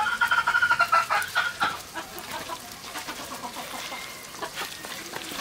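A hen clucking in a quick run of short calls, which fades out about two seconds in. Only faint small clicks follow.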